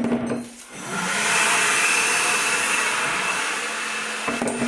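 A small electric blower motor starts up about a second in after a couple of knocks and runs steadily with a high whine, clearing metal scraps that could cause a flat tire.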